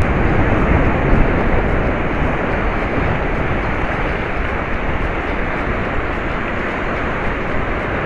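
Surf breaking and washing up a sandy beach, a steady rushing noise, with wind rumbling on the microphone.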